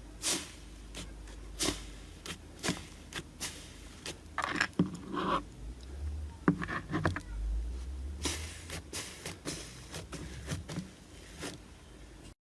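Slime being poked and squeezed by hand, giving a string of sharp, irregular pops and clicks, thickest about two-thirds of the way through.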